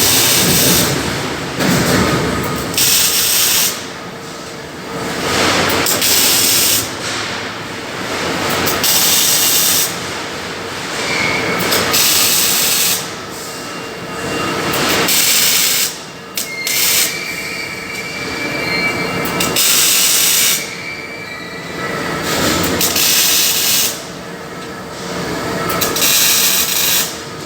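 Electric arc welding: the arc crackles and hisses in repeated bursts of a few seconds each, with short breaks between welds.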